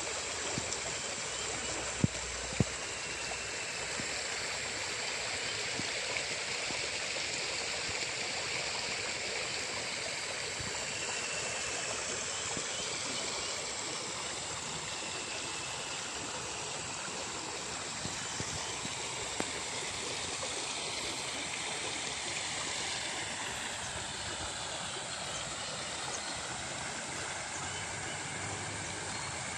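Steady rushing of water flowing along a small irrigation ditch, with two sharp clicks about two seconds in.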